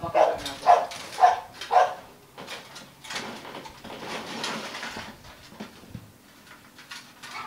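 A dog barking four times in quick succession with short, high yelps, followed by softer scraping and rustling as a plastic box is slid down off a cage top.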